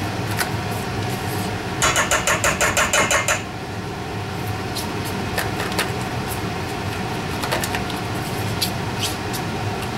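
Mascarpone being scraped and knocked out of its plastic tub into a stainless-steel mixing bowl: a quick run of about ten light clicking strokes about two seconds in, then a few single clicks, over a steady mechanical hum.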